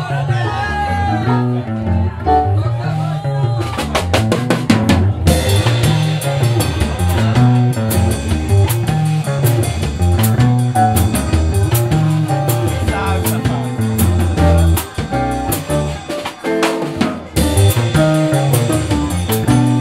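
Live jazz band: an electric bass guitar repeats a looping bass line while the drum kit comes in about four seconds in and keeps a busy cymbal-driven groove, thinning out briefly near the three-quarter mark before the cymbals return.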